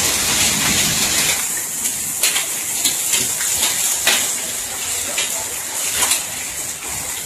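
Heavy hailstorm with rain: a steady loud rush with many sharp clicks of hailstones striking hard surfaces.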